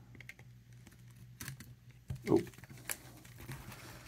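A snap-off utility knife scraping and clicking against the seal and cardboard of a small trading-card box, a few sharp separate clicks with a short falling sound a little past two seconds in.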